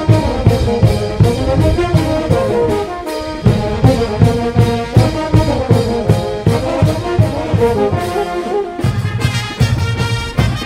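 Brass band playing a dance tune, its low brass and horns carrying the melody over a steady beat.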